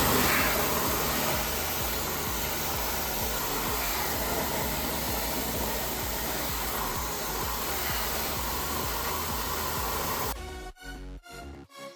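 A steady, loud rushing hiss, like air being blown, over background music. It starts suddenly and cuts off abruptly about ten seconds in.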